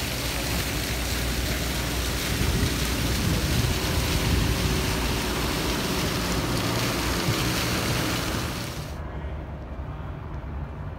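Water pouring from a stone wall fountain and splashing onto a stone block and into the pool below, a steady rushing splash. It cuts off about nine seconds in, leaving a quieter low rumble.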